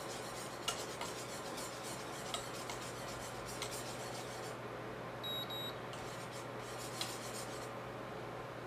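Wire whisk scraping and tapping against the inside of a stainless steel pot as a creamy mixture is stirred, over a steady low hum. A little past halfway, two short high beeps from the induction cooktop's control panel as its setting is turned up.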